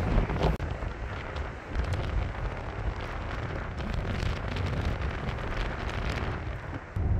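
Wind buffeting the microphone in uneven gusts, over the steady rush of a large waterfall. The loudest gust comes right at the start.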